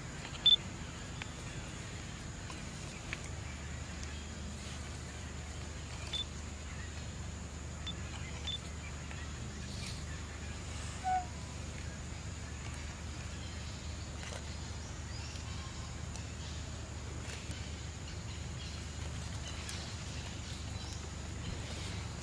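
Outdoor ambience: a steady low hum and a thin steady high tone. A few brief high chirps stand out, the loudest about half a second in, with a short squeak around eleven seconds.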